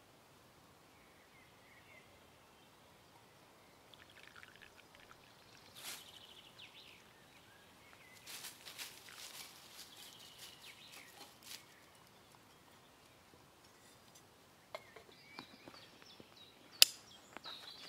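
Quiet outdoor ambience, then scattered rustles and light clicks from about four seconds in, with one sharp click near the end.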